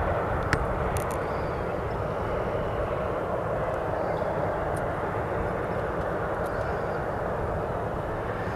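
Steady roar of jet aircraft engines running across an airport ramp, with a low rumble underneath.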